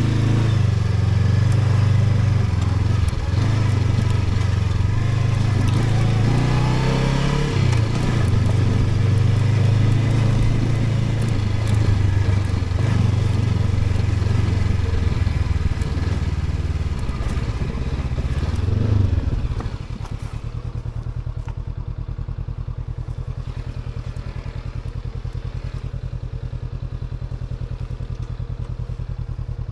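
Honda CB500X's parallel-twin engine pulling at low speed through slippery mud, its revs rising and falling, with scattered clatter. About twenty seconds in it drops back to a quieter, steady idle.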